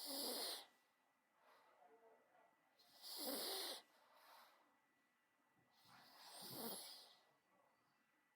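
Terrier dog snorting and snarling: three breathy, rasping snorts about three seconds apart, with softer breathing between them.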